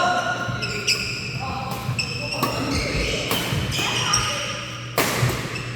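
Badminton play in a hall: rackets strike the shuttlecock several times at irregular intervals, with the loudest hit near the end. Shoes squeak on the court floor between the hits.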